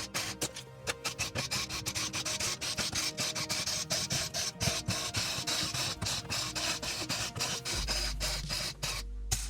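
Background music with a fast, even ticking beat over held tones, and a deep bass note coming in near the end.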